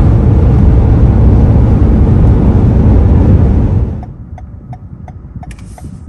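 Car on the move, heard from inside: loud, steady road and wind noise that drops off sharply about four seconds in. A light, regular ticking about twice a second then remains over the quieter engine and tyre noise.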